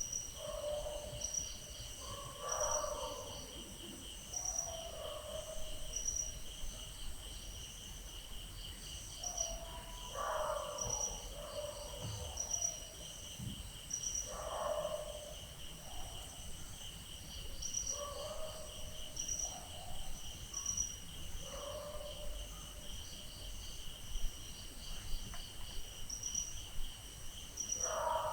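Crickets chirping steadily at night, with dogs barking in the distance every few seconds.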